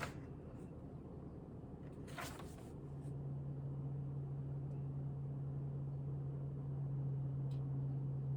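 Two brief rustles, then a steady low mechanical hum that starts about three seconds in and keeps going.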